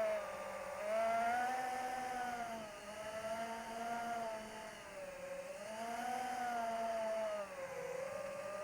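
Electric motor and propeller of an AtomRC Dolphin FPV model plane whining, its pitch dipping and rising again every two to three seconds.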